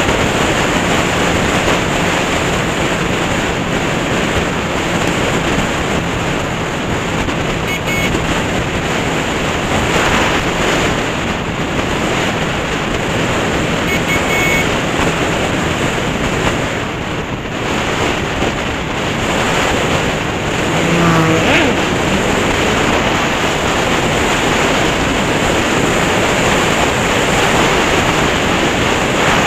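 Steady rush of wind buffeting the microphone of a Honda CB500 motorcycle at road speed, with the engine's hum mostly buried beneath it. About two-thirds of the way through, a brief rising tone comes through.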